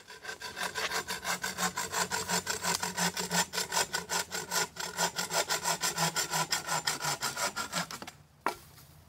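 Hand bow saw cutting through a dead tree limb with rapid, even back-and-forth strokes that stop about eight seconds in, followed by a single sharp click.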